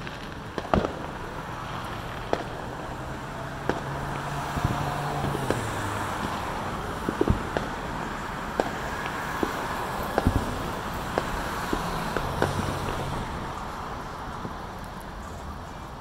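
Fireworks going off, a dozen or more sharp bangs at irregular intervals, over the steady hum of passing car traffic.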